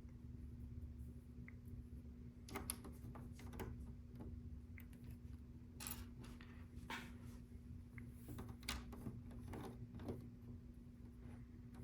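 LEGO pieces being handled and pressed into place, giving scattered faint plastic clicks at irregular intervals over a steady low hum.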